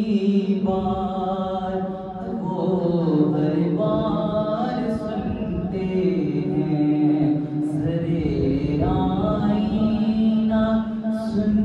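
A male voice singing a naat (Urdu devotional song) without instruments, in long held notes that bend and waver in pitch, over a steady low drone.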